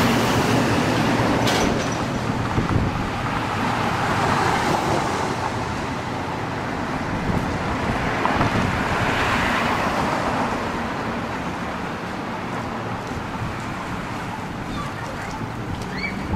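Street traffic noise: a steady hum of road traffic, with cars swelling past about four seconds in and again around nine seconds.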